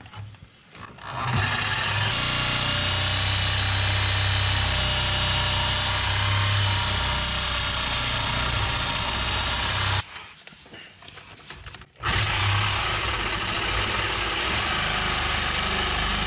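Reciprocating saw running steadily as it cuts through metal pipe. It stops for about two seconds partway through, then starts cutting again. The blade is binding in the cut.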